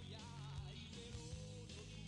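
Quiet background rock music with guitar and a singing voice.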